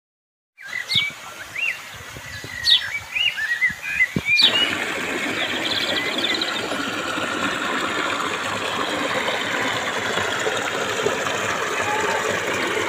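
Birds chirping for the first few seconds, then the steady rush of a small waterfall splashing over rocks into a pool, starting about four seconds in.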